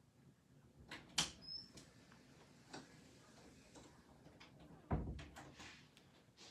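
Scattered faint clicks and knocks: a sharp click about a second in and a duller thump about five seconds in, with a few lighter ticks after it.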